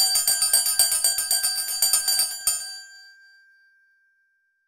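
A small bell rung rapidly, about eight strikes a second, then a last strike about two and a half seconds in that rings on and fades away: a notification-bell sound effect for a subscribe button.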